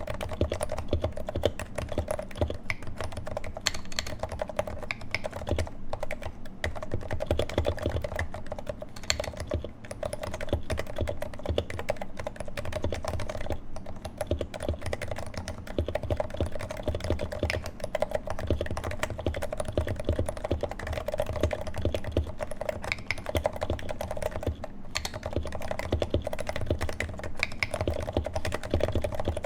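Continuous fast typing on a Leopold FC660C with 55g Topre electrocapacitive rubber-dome switches in a Norbauer Heavy-6 case, its sliders swapped for lubed Novatouch sliders with Silence-X rings and GMK keycaps. A dense, unbroken run of deep, muted thocky keystrokes.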